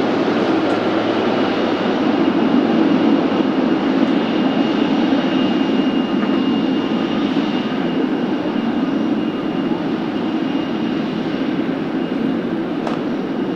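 Twin GE90 jet engines of a Boeing 777F freighter running: a steady, loud rumble with a faint high whine.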